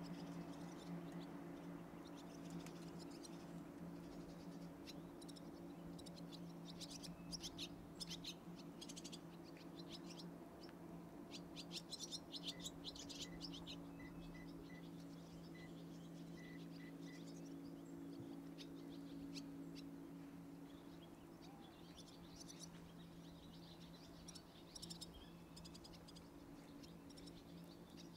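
Faint evening lakeside ambience: birds chirping in scattered bouts of quick high clicks and calls over a steady low hum, with a short run of evenly spaced pips midway.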